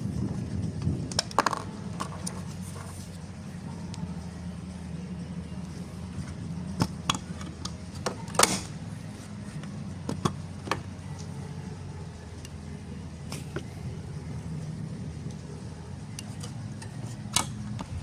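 Scattered sharp plastic clicks and knocks as the clear hinged cover over a home battery's breaker panel is handled, the loudest a little past the middle. A steady low rumble runs underneath.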